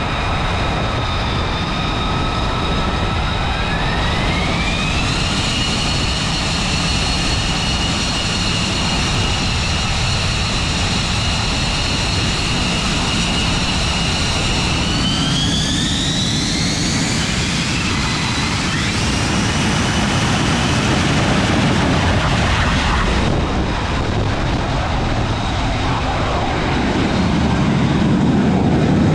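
F-35B jet engine running on deck: a steady roar under a high whine that rises in pitch twice as the engine spools up to higher power. About 23 s in it changes abruptly to a deeper, louder jet roar that builds toward the end.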